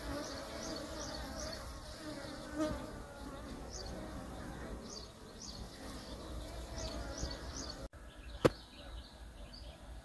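Honeybees buzzing around a row of wooden beehives, a steady hum with short high chirps repeating above it. A single sharp click about eight and a half seconds in.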